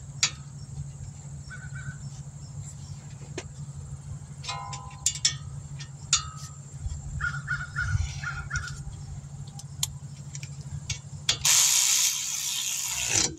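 Crows cawing, with a run of about four caws a little past the middle, over sharp metal clinks of hand tools as brake caliper bolts are threaded in, and a steady low hum. Near the end a loud hiss lasts about two seconds.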